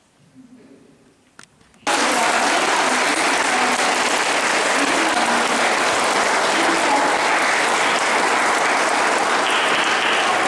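Audience applauding: after a quiet start, the clapping begins abruptly about two seconds in and goes on loud and steady.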